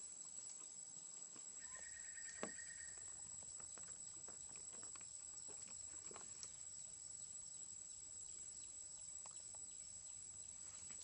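Faint forest ambience: a steady high insect drone under scattered light taps and rustles from baby macaques clambering on a tree branch. A short high whistled note sounds about two seconds in, with a sharper click near its end.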